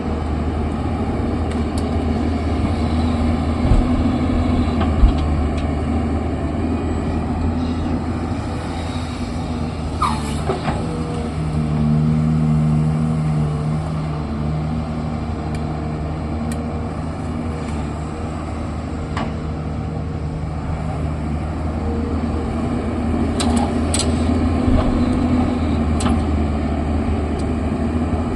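Diesel engine of an earthmoving machine (backhoe loader or excavator) running steadily under work, with a few sharp metallic knocks.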